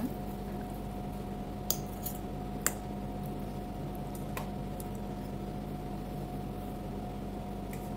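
Someone eating ripe mango off a ceramic plate: soft wet chewing and a few sharp clicks of a metal fork against the plate in the first half, over a steady background hum.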